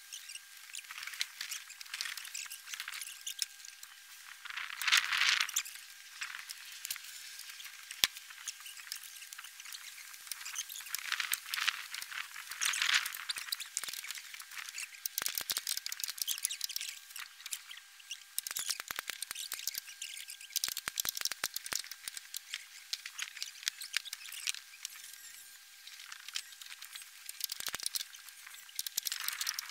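Rustling and crackling of a plastic roofing sheet being handled, with many small sharp clicks. There are two louder rustling swells, about five and thirteen seconds in, and one sharp click about eight seconds in, over a faint steady high tone.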